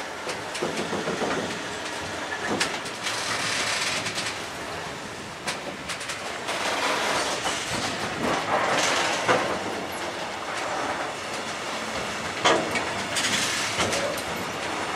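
Freight train of bulk silo and tank wagons rolling past close by: continuous wheel-on-rail rumble and clatter, broken by irregular sharp knocks as the wheels pass rail joints.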